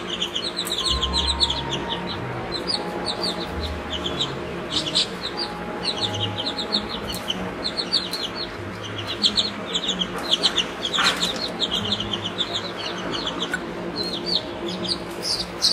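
Several baby chicks peeping: quick runs of short, high cheeps that keep going, overlapping one another.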